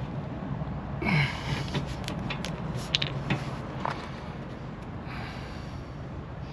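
Several sharp metallic clicks and taps as exhaust-mount hardware (bushing, bracket and bolts) is handled and fitted by hand, with a short vocal sound about a second in, over a steady low hum.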